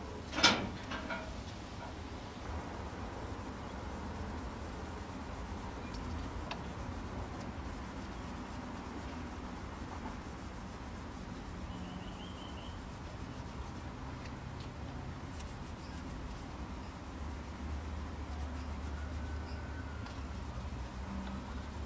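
Cloth rubbing boiled linseed oil into the Mallee hardwood scales of a knife handle, a soft continuous wiping. A single sharp knock about half a second in.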